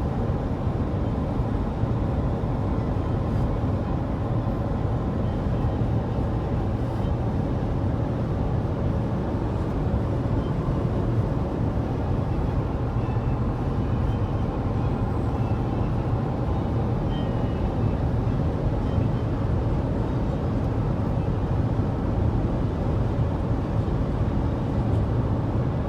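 Steady road and engine noise inside a moving car's cabin, deep and even, with no changes.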